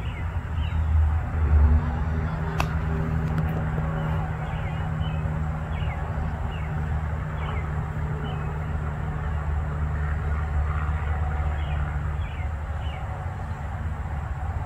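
Steady low motor drone, with faint short chirps repeating over it and one sharp knock about two and a half seconds in.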